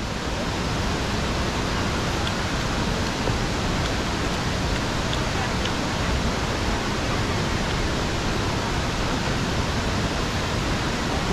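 Steady rush of flowing water, a loud, even hiss with no change in level.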